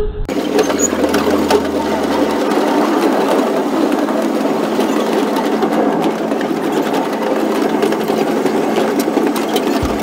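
Steady, fast mechanical rattling with a constant low hum underneath.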